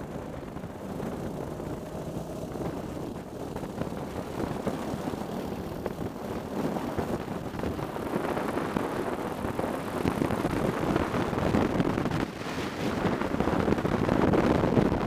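Racing kart engine running at speed, heard from an onboard camera with wind on the microphone; it gets louder over the last few seconds.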